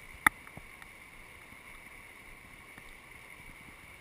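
Steady rush of flowing river water with a faint steady high tone under it, and one sharp click shortly after the start.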